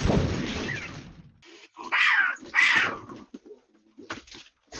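Cat hissing: a long hiss, then two shorter sharp hisses about two seconds in, typical of a standoff between cats.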